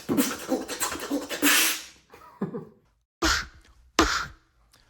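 Beatboxer performing loud vocal percussion: a dense run of beats, then after a short pause two sharp, loud percussive hits about a second apart.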